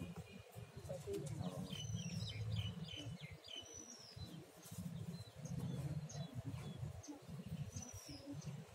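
Small birds chirping: a few clear downward-sliding whistles a couple of seconds apart and a quick run of short chirps about two seconds in, over an uneven low rumble.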